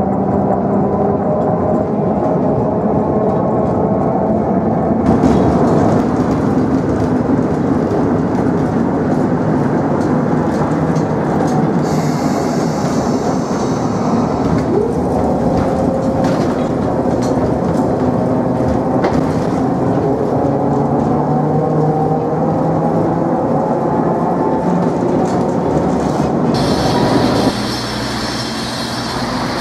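Running noise of an old freight tram heard from on board: wheels rumbling over the rails with a steady motor hum whose pitch drifts slowly up as it moves, and a short high hiss or squeal partway through. Near the end it gives way to quieter street sounds.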